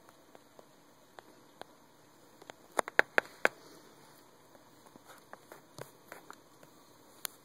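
Scattered light clicks and crackles of bark-chip bedding being disturbed, with a short run of louder sharp clicks about three seconds in.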